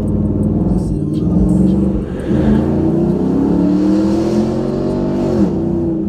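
Car engine and exhaust heard from inside the cabin, accelerating: the pitch dips about two seconds in, climbs steadily for about three seconds, then drops off sharply near the end as the throttle is lifted or a gear is changed.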